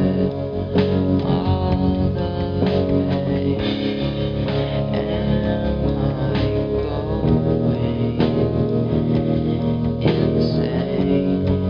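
Music: a guitar-led song with effects-processed guitar over a steady beat.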